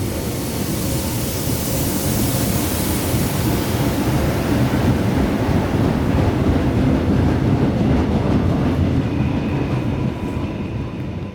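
Electric train running on the tracks: a steady loud rumble of wheels on rail with a hiss over it. A faint high whine comes in near the end, as the sound begins to fade.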